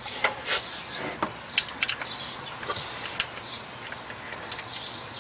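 Scattered light clicks and taps at irregular intervals as hands handle a carburetor and its fittings on a Chevy 4.3 engine.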